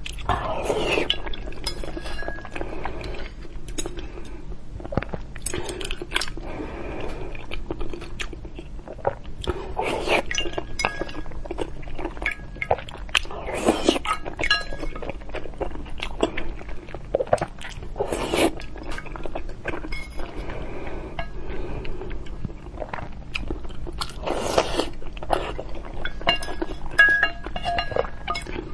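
Close-miked eating sounds: a wooden spoon and chopsticks clink and scrape against the bowl, with biting, chewing and sips of spicy broth from the spoon.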